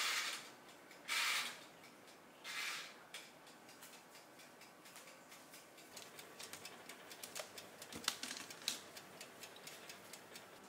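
Electrolux toaster oven's mechanical timer knob turned in three short bursts, then the wound timer ticking rapidly.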